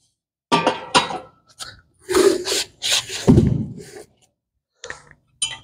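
Knocks and scraping as a rowing foot peg and other parts are handled and set in place at the base of a cable machine, with a dull thump about three seconds in and a few light clicks near the end.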